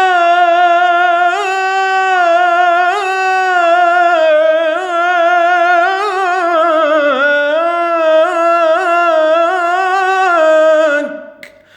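A male Quranic reciter singing unaccompanied, holding one long melismatic phrase with wavering trills and ornaments. The pitch dips about seven seconds in, climbs back, and the voice breaks off just before the end.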